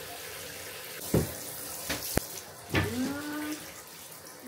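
Bath water splashing and trickling as a baby is washed, with a few sharp splashes or knocks and a brief voice about three seconds in.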